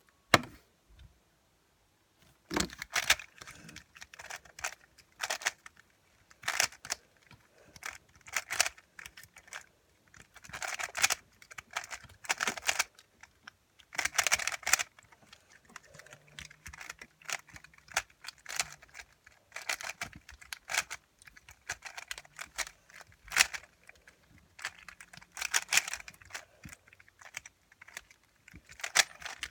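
A 3x3 Rubik's Cube being turned fast in a timed speedsolve: bursts of rapid plastic clacking from the turning layers, broken by short pauses. There is one sharp click just after the start.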